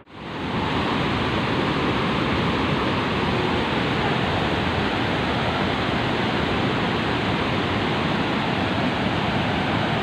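Steady rushing of a large waterfall, the Rhine Falls: an even wash of falling water that rises in over the first half second and then holds unchanged.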